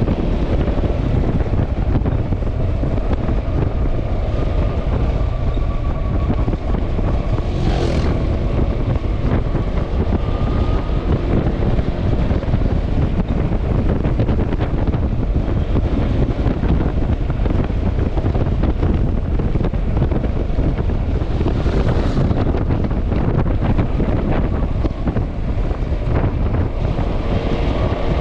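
Heavy wind rush on the microphone over the steady running of a Yamaha XMAX scooter at road speed. Two brief whooshes come about 8 and 22 seconds in.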